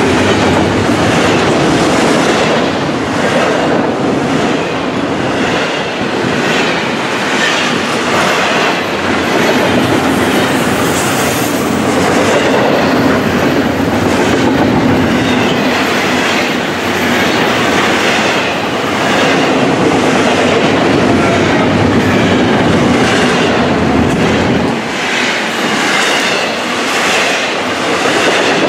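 Loud, steady rumble of a Florida East Coast Railway freight train's double-stack container well cars rolling past close by, the steel wheels clicking in a repeating clickety-clack.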